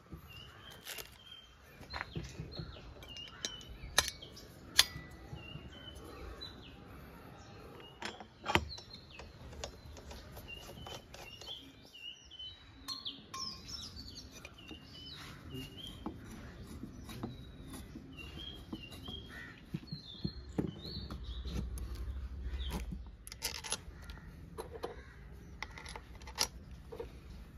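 Scattered clicks and light metal knocks of alternator housing parts and hand tools being handled on a wooden workbench, with small birds chirping throughout. A low rumble comes in about three-quarters of the way through.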